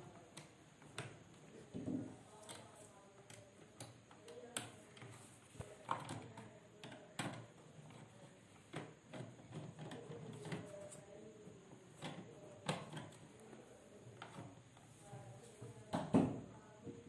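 Screwdriver tightening a terminal screw on a neutral bus bar, with scattered light clicks and scrapes of metal and wire in a plastic distribution box. The loudest knock comes near the end, as the hand moves to the circuit breaker.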